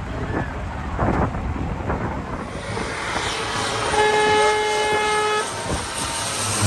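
Wind buffeting the microphone, then jet aircraft engine noise building from a little over a third of the way in, with a horn blowing one steady note for about a second and a half midway.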